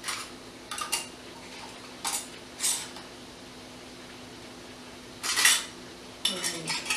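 Metal canning-jar screw bands clinking against glass and metal as they are picked up and twisted onto glass jars. The clinks are short and scattered, with the loudest about five and a half seconds in.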